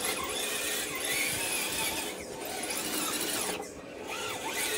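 Electric motor and gear transmission of an RC scale crawler whining and squealing, rising and falling in pitch with the throttle as it crawls through mud; the transmission is old, worn and noisy.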